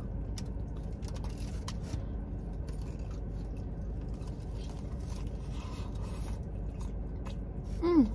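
Close-miked chewing and mouth sounds of a person eating, with small clicks, crunches and scrapes over a steady low rumble. Near the end comes a short hummed 'mm' that falls in pitch.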